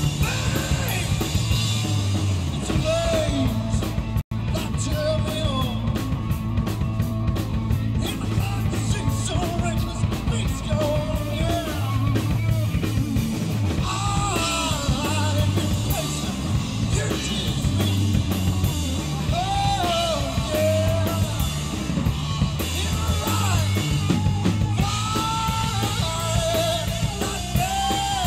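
Live rock band playing through a PA: a singer singing over electric guitars, bass and a drum kit. The sound drops out for an instant about four seconds in.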